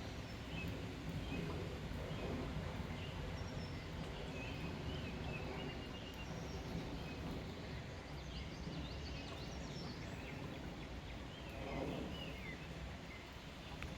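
Birds chirping: many short calls and little falling whistles scattered throughout, over a steady low outdoor rumble.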